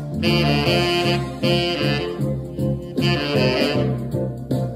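Saxophone playing a melody in held notes, its phrases breaking about every one and a half seconds, over a backing accompaniment whose low notes carry on between the phrases.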